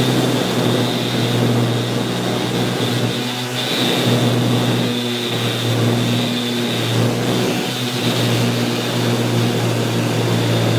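Electric orbital sander running steadily and loud, with a low hum and a high whine, sanding a wooden splice flush, with a few brief dips in level as it works over the wood.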